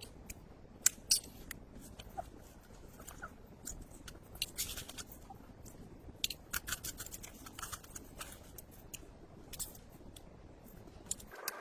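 Campfire crackling: irregular sharp snaps and pops over a low steady rumble.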